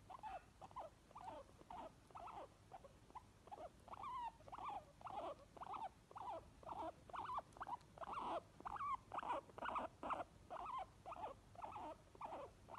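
Guinea pigs wheeking: a fast, steady series of short high squeaks, about three a second, some sliding up or down in pitch.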